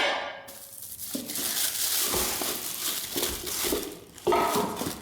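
Ceiling fan parts and packaging being handled: crinkling, rustling packing material, with a ringing metal clink at the start and another about four seconds in.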